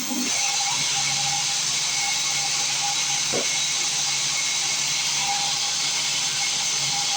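Band sawmill running, a steady high noise with a faint hum under it and no change in level.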